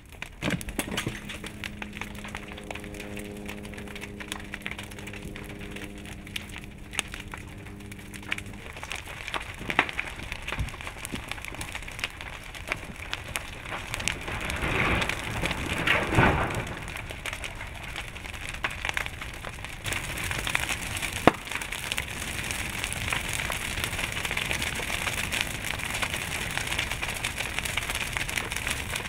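A wooden house burning as lava engulfs it: steady crackling and popping, with sharp cracks and a louder burst of cracking and crunching about halfway through. A steady low hum sounds for the first several seconds.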